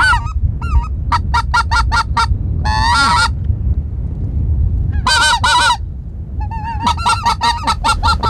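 Hand-blown goose call imitating greater white-fronted geese: a two-note honk, a quick run of about seven short clucks, a longer honk, then after a pause of over a second two honks and another fast string of short notes near the end. A low wind rumble runs underneath.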